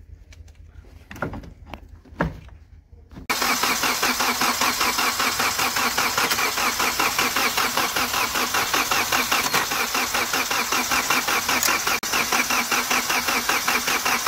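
Hyundai Verna common-rail diesel engine being cranked on its starter motor, beginning about three seconds in and running on steadily without the engine catching, while air is bled out of the loosened injector fuel lines. Two light knocks come before the cranking.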